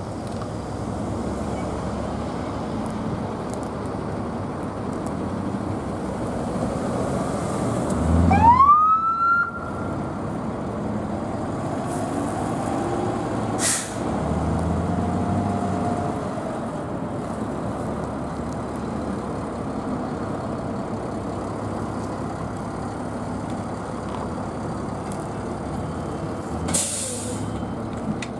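Emergency vehicles running at a scene: a steady engine and traffic rumble. About eight seconds in, a siren winds up in rising pitch for a second or so and is cut off, with a sharp click a few seconds later. Near the end comes a short hiss like an air brake release.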